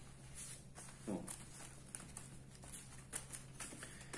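Soft handling noises as rubberized nylon fabric is pressed down by hand onto adhesive tape: faint scattered taps and rustles over a steady low hum, with a short vocal sound about a second in.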